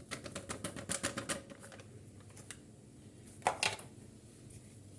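Packet of chantilly whipped-cream powder being handled: a quick run of light clicks and crinkles for about two seconds, then two louder rustles about three and a half seconds in.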